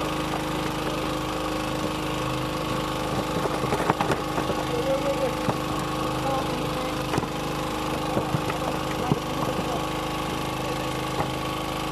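A boat's engine running steadily, with scattered short clicks and knocks about three to ten seconds in.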